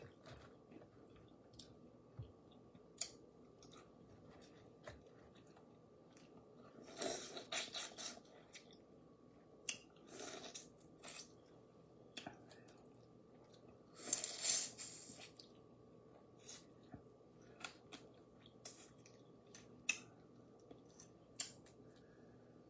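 Seasoned crawfish being eaten by hand: scattered small clicks and cracks of shells being broken and picked apart, with chewing. There are two louder, longer noisy stretches about seven and fourteen seconds in.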